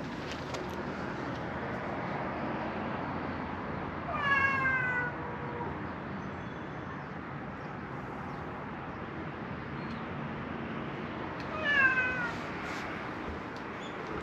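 A cat meowing twice, about seven seconds apart, each meow short and falling in pitch.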